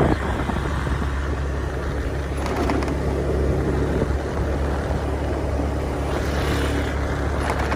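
Motorcycle running at a steady cruising speed, its engine and road rumble mixed with wind on the microphone.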